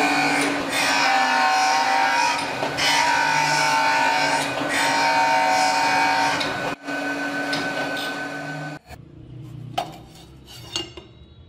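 Surface grinder's abrasive wheel grinding a steel blade: a loud, steady grinding hiss with a hum under it, which cuts off about nine seconds in. A few quiet clicks and knocks follow.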